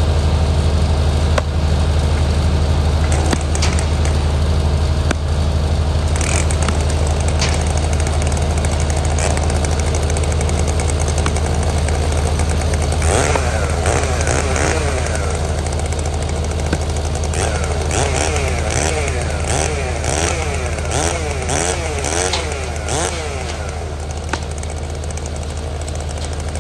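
Stihl chainsaw running steadily at idle, its revs swinging rapidly up and down from about halfway, with a run of sharp knocks from an axe splitting firewood rounds near the end.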